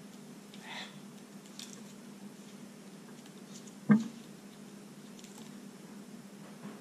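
Faint scratching and picking of a small hand tool working a vinyl paint mask, over a low steady hum, with one sharp knock about four seconds in that is the loudest sound.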